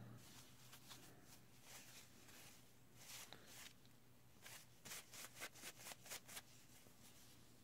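Faint rustling of fabric being handled by hand, as a red fabric flower is turned and fluffed: a few soft rustles about three seconds in, then a quicker run of them in the second half.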